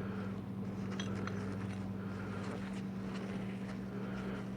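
A steady low hum with a few faint light clicks about a second in, as of small transmission pump parts being handled.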